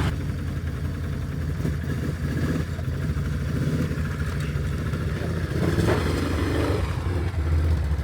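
Yamaha Wolverine X4 side-by-side's engine running at low revs as it rolls off a trailer, picking up briefly about six seconds in.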